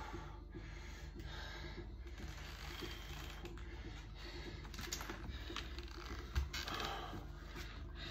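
Faint rustling and small clicks of leather hand pads creaking on a horseshoe as it is gripped and strained in a hand bend, over a steady low hum, with a single thud about six seconds in.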